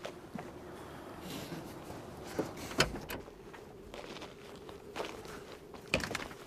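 Footsteps on snowy ground, with a few sharp clicks and knocks, over a steady outdoor hiss.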